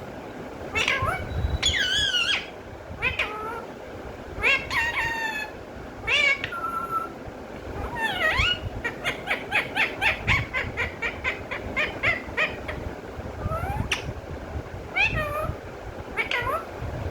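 Pet parrot calling: a series of squawks and whistled calls with sliding pitch, and a quick run of short chirps, about four a second, through the middle.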